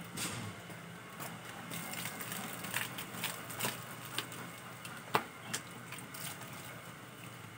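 Water poured from a plastic bucket over a wet dog, splashing and dripping onto concrete, with scattered small clicks and taps. One sharper knock comes about five seconds in.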